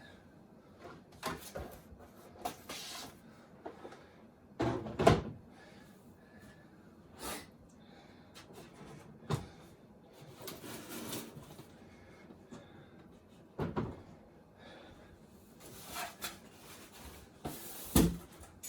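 Packaging and a heavy statue base being handled: scattered knocks and thuds with rustling of packing material, the loudest thumps about five seconds in and near the end.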